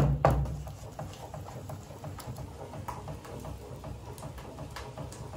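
Cooking at a wood-burning stove while a pot of buriti sweet thickens: two sharp knocks at the very start, then faint scattered clicks and ticks over a low hum.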